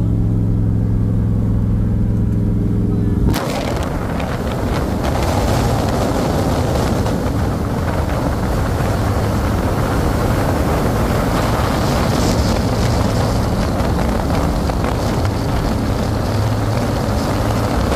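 Turbocharged LS V8 of a 1969 Camaro cruising, heard inside the cabin as a steady engine drone. About three seconds in the sound switches to a camera on the outside of the car, where a steady rush of wind and road noise covers most of the engine.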